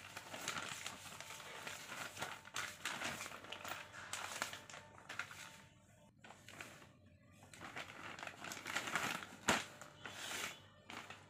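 A glossy plastic shopping bag crinkling and rustling as it is handled and folded, with a sharp crackle about nine and a half seconds in.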